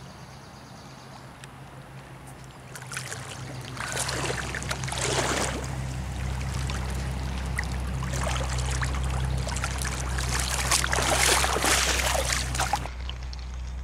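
Water splashing in bursts as a hooked catfish is hauled in on a handline and thrashes at the surface, over a steady low rumble; the splashing comes about four seconds in and again from about eight seconds, stopping suddenly near the end.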